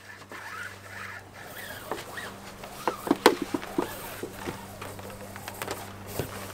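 Nylon lacing rope being pulled and threaded through loops along a canoe's hull: irregular rustling and scraping of cord and deck fabric, with a cluster of sharp clicks about three seconds in, over a steady low hum.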